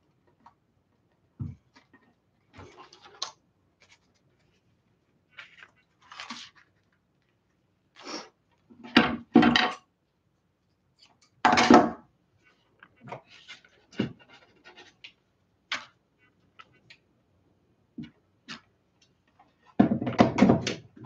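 Hands handling craft materials, elastic and scissors, at a table: short scattered rustles with a few light knocks, and a longer, louder bout of rustling and handling near the end.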